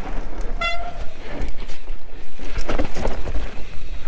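Mountain bike rolling down a trail: tyres and frame rattling over rough ground with repeated knocks, and wind noise on the microphone. A brief high squeal comes about half a second in.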